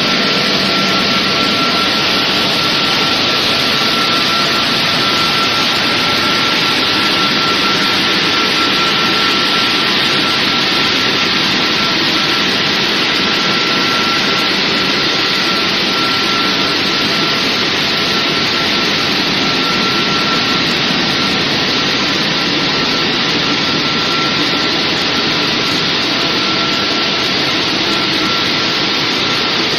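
Touchless car wash machine's drying blowers running steadily: a loud rushing of air with a steady high whine, which starts to fall in pitch right at the end as the blowers wind down.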